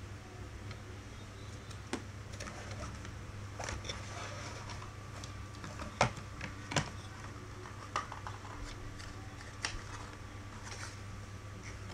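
Cardboard packaging of a phone box being handled: light rustling with a few sharp taps and knocks as the inner tray is lifted and set down, the loudest two around six to seven seconds in. A steady low hum underlies it.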